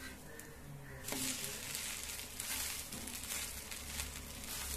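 Dosa sizzling in ghee on a hot dosa griddle (tawa) as it is lifted and turned over with a steel spatula; a steady, faint frying hiss with light crackle, duller for about the first second.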